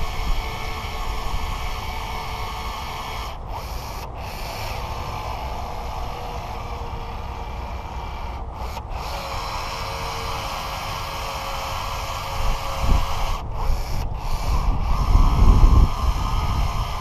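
Caulking gun pushing out a bead of urethane windshield adhesive, a steady mechanical working sound, with wind rumbling on the microphone near the end.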